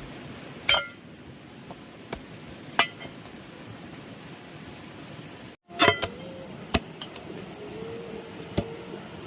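Hard objects being struck: several sharp knocks and clinks with a brief ring, a second or two apart and unevenly spaced. The loudest strikes come near the start and about two-thirds of the way in.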